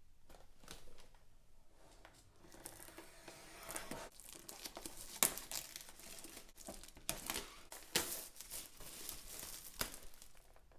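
Plastic wrapping being crinkled and torn by hand, a dense rustling with sharp crackles about five and eight seconds in.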